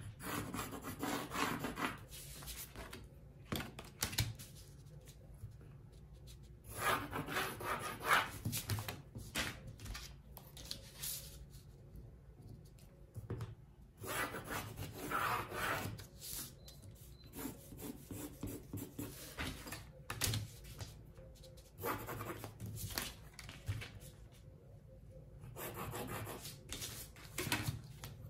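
Pencil drawing lines on paper along a plastic pattern-drafting ruler: about six scratchy strokes of one to two seconds each, with short quiet gaps between them.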